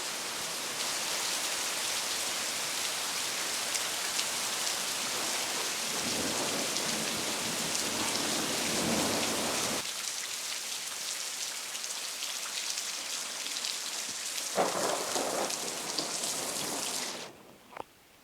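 Heavy rain pouring steadily in a thunderstorm, with thunder rumbling twice, once about six seconds in and again near the end. The sound then cuts off suddenly.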